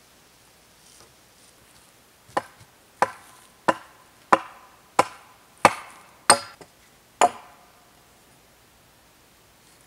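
Eight sharp blows of a tool striking a wooden roof-frame pole, about one every two-thirds of a second, each with a short ring after it.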